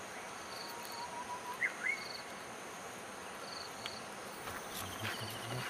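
Insects chirping in grass and trees: short high chirps repeating in pairs over a steady high drone. A brief rising-and-falling call cuts in about a second and a half in.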